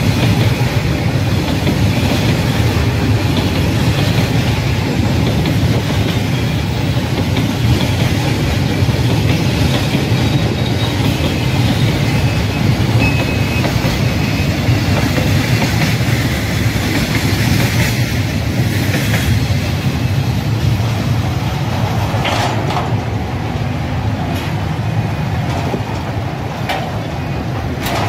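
Freight train of covered boxcars rolling past close by: a steady rumble and clatter of steel wheels on the rails.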